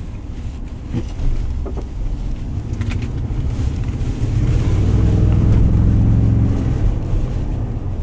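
2017 Ford F-150 pickup's engine heard from inside the cab while driving, with road and wind noise; the engine note builds from about halfway through, then eases off near the end.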